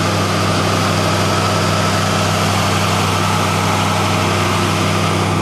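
Rebuilt Ford 289 small-block V8, fitted with an aftermarket cam and a new Holley carburettor, idling steadily, smooth and quiet, heard up close in the open engine bay.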